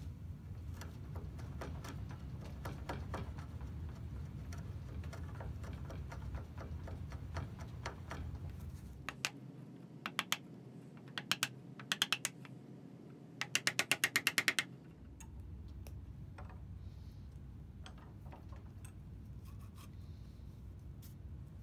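Hand chisel paring wood inside the bored hole of a wooden mallet head: faint scraping and small clicks over a steady low hum. In the middle, sharper clicks come a few at a time and then in a quick even run of about ten a second.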